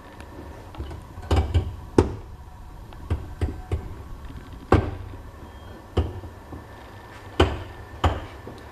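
Train cab master controller lever being moved through its notches between power, coast and brake, giving a sharp click or clunk at each detent, about nine at uneven intervals. A steady low hum runs underneath.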